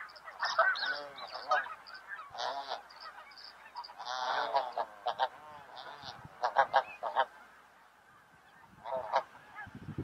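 Snow geese calling: bursts of many overlapping honks, with a lull of about a second before a last short burst near the end.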